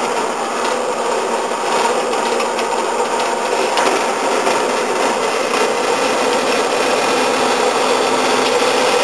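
A 4.5-inch metal-cutting bandsaw running steadily, its blade sawing through a piece of oiled metal stock.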